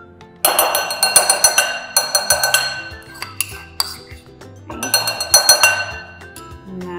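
Metal spoon scraping and clinking rapidly against a ceramic bowl while melted butter is scraped out, in two runs: from about half a second in to nearly three seconds, and again around five seconds. Background music plays underneath.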